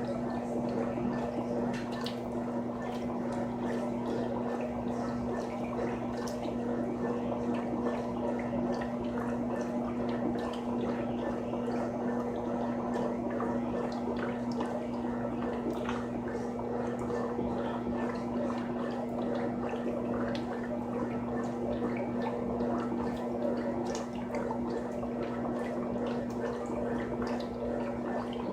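Frigidaire Gallery Series top-loading washing machine running with water in the tub: a steady motor hum under continuous splashing and gurgling water.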